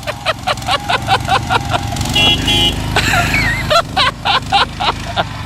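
Wheel Horse lawn tractor engine running steadily underneath, with a short double car-horn toot about two seconds in. Around it come quick runs of sharp pulses, several a second, that could be laughter or claps.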